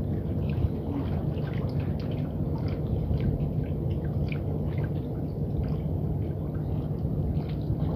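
Sea water lapping and dripping against the concrete jetty pilings, many small irregular splashes, over a steady low hum.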